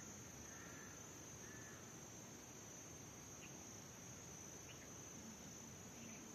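Faint, steady high-pitched insect trill, with a few brief faint chirps over it.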